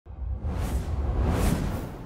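Intro logo sound effect: whooshing swells over a deep low rumble, starting abruptly just after the start.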